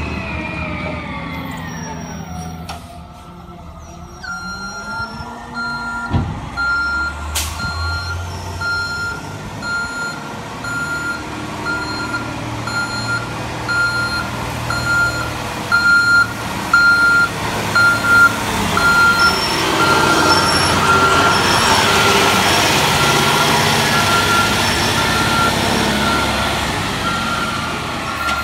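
CNG Peterbilt 320 recycling truck pulling away, its engine note falling and fading. Then its backup alarm beeps steadily, about one beep every three-quarters of a second, while the engine grows louder as the truck comes close.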